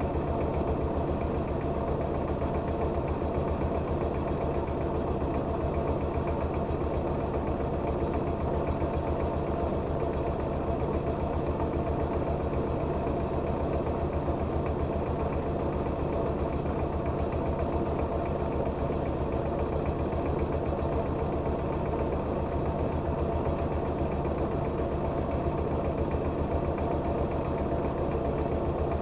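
Engine of a rice-milling machine running steadily with a fast, even beat.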